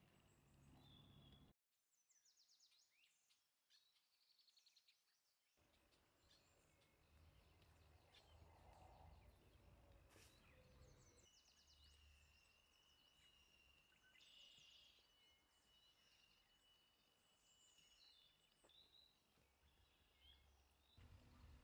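Faint outdoor woodland ambience with small birds calling: scattered quick runs of high chirps, and a thin steady high tone held for several seconds in the middle. The sound drops out to silence briefly about a second and a half in.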